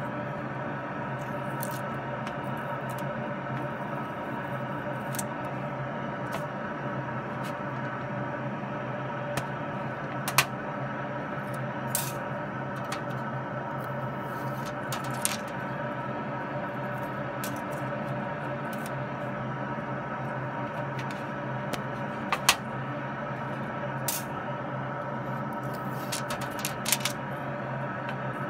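A handful of sharp, isolated clicks as a bench power supply's probe tip touches nanofoil held in tweezers on a grounded metal pan, over a steady hum with several tones.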